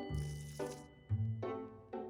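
Background children's music: a few held instrumental notes, with a new bass note about once a second.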